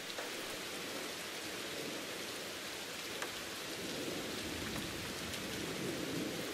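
Steady rain falling: an even hiss with a few faint scattered drop ticks.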